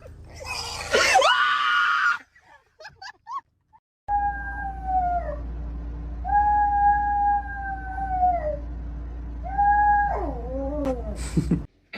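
A dog howling: three long held notes, each falling away at the end, the middle one the longest. It is preceded in the first two seconds by a loud, harsh cry that rises in pitch.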